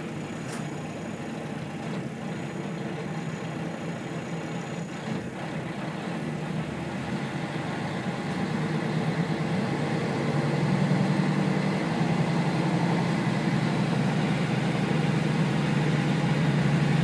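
Kashima Rinkai Railway 6000 series diesel railcar's engine idling at a station stop, then throttling up from about eight seconds in as the railcar pulls away, the engine hum growing steadily louder. Heard from inside the car.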